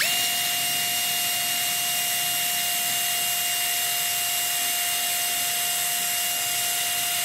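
Electric drill spinning a wooden stir stick to mix green pigment powder into epoxy resin: the motor spins up right at the start, then runs at a steady whine over a hiss.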